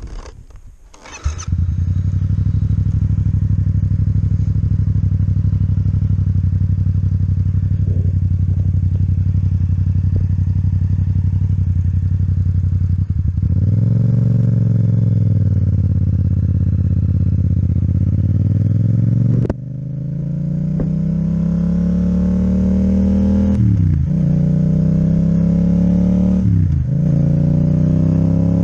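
Yamaha MT-07 parallel-twin engine with an Akrapovic exhaust starting up about a second in, then idling steadily. Around the middle it gets a single throttle blip. Later the bike pulls away and accelerates, the engine note rising with two quick breaks for upshifts.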